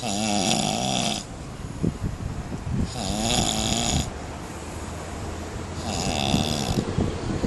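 A person snoring: three loud snores about three seconds apart, each about a second long with a wavering pitch, and a softer crackling breath between them.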